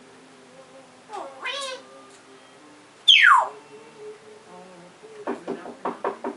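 African grey parrot calling: a short wavering call, then a loud whistle that falls steeply in pitch about three seconds in, then a quick run of clicking notes near the end.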